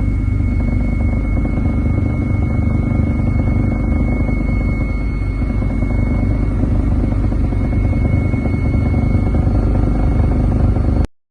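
Steady, loud engine drone with a constant high whine above it, which cuts off abruptly near the end.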